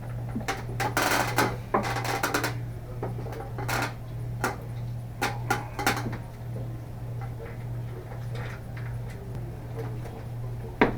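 Small hard clinks and rattles of a light fixture and its mounting hardware being handled and fitted, busiest in the first few seconds and then sparser, over a steady low hum.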